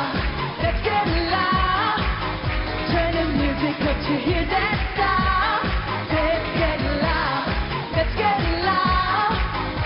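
A woman sings a pop song into a stage microphone over a steady dance beat and backing band.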